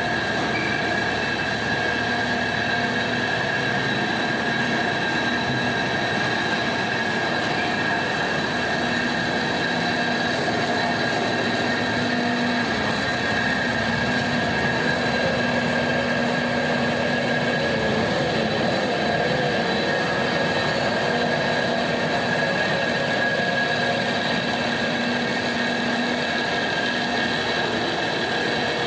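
Diesel-powered drum wood chipper running steadily, its engine and spinning drum making a continuous loud noise with a steady high whine over it.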